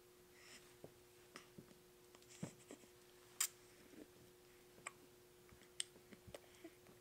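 Near silence with faint scattered clicks and rustles of a newborn being handled, the sharpest click about three and a half seconds in, over a faint steady hum.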